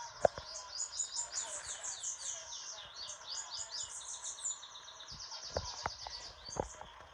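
Bananaquits singing rapid, high-pitched, buzzy trilled phrases in quick succession, with the songs overlapping at times. A sharp click comes just after the start and a few knocks near the end.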